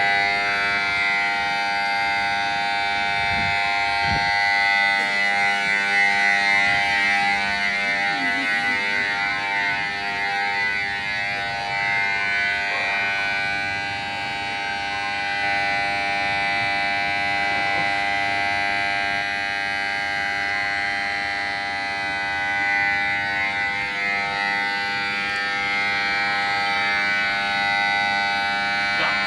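Railway platform emergency stop alarm sounding steadily as a held chord of electronic tones. It signals that a platform emergency stop button has been pressed.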